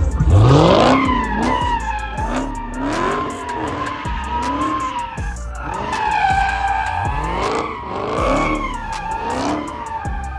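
A car spinning donuts, its tires squealing steadily while the engine revs rise and fall about once a second.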